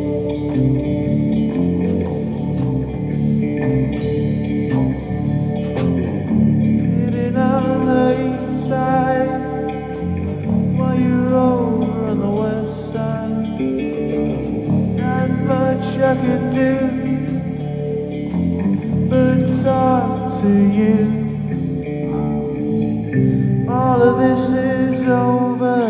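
Three-piece rock band playing live: electric guitar, bass guitar and drum kit with steady cymbal ticks. A male lead vocal comes in about seven seconds in and sings in phrases with short gaps.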